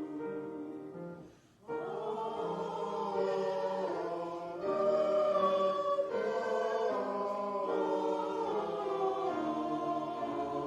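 A choir singing slow, sustained music, with a brief pause about a second and a half in before the voices come back in.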